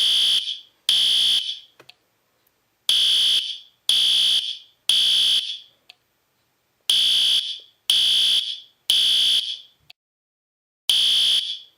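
Fire alarm sounding the three-beep evacuation pattern: three high-pitched beeps about a second apart, then a short pause, repeating over and over.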